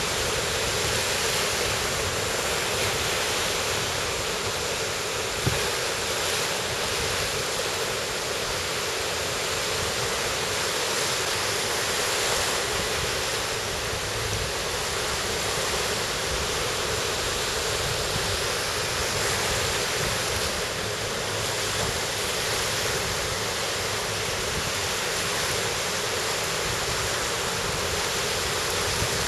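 Sea surf washing onto the beach, a steady rushing noise. A single sharp click about five and a half seconds in.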